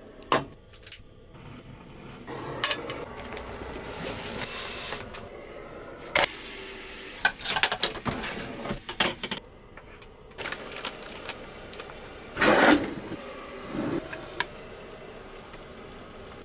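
Cooking handling sounds: a canister camp stove, a cupboard, a bowl and utensils being handled, giving scattered clicks, knocks and clatter. A steady hiss runs underneath for much of it, and there is a louder clatter near the end.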